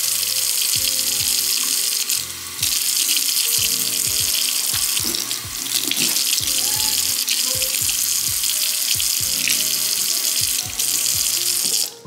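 Kitchen faucet running in a steady stream into a stainless steel sink as hands are rubbed and washed under it. The rush of water drops briefly about two seconds in and again near the end.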